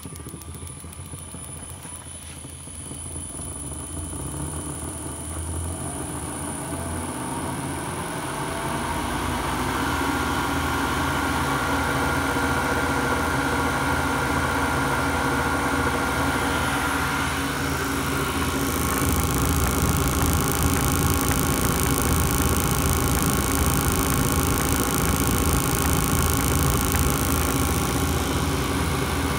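Rotax 912 ignition test jig running: a VFD-driven three-phase electric motor spins the ignition and generator through a shaft and pulley, firing four open spark plugs. It winds up in speed over the first several seconds, then runs steadily at about 1600 RPM, growing a little louder with an added hiss about two-thirds of the way through.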